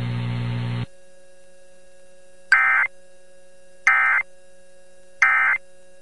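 A steady low electrical buzz cuts off a little under a second in. Then come three short bursts of warbling digital data tones, each about a third of a second long and about a second apart: the EAS/SAME end-of-message code sent by NOAA Weather Radio after an alert.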